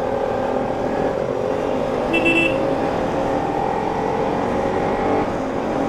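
Bajaj Pulsar RS200's single-cylinder engine running at riding speed, its note rising slowly, with wind and road noise on the helmet microphone. A brief high beep comes about two seconds in.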